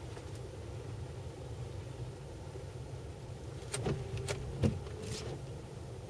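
Range Rover engine running under load as it climbs a steep muddy slope, a steady low rumble, with a few sharp knocks about four seconds in.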